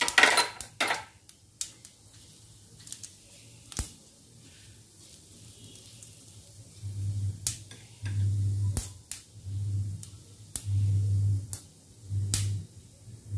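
Urad dal dropping into hot oil with mustard seeds in a steel pan, a brief loud sizzle at the start, then a faint sizzle of frying with occasional sharp clicks. From about seven seconds in, a low electrical hum from the cooktop switches on and off every second or so.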